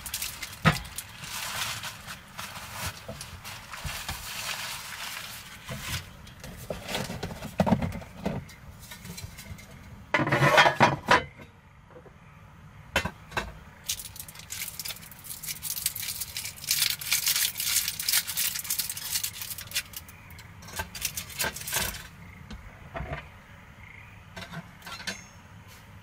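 Hands handling small cooking gear on a wooden table: scattered light clinks and clatters of a small metal stove stand, a clay donabe rice pot and its lid, mixed with rustling. The loudest clatter comes about ten seconds in.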